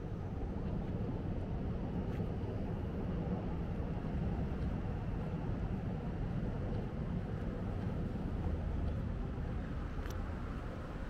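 Steady low rumble of city street traffic and ambience, played backwards.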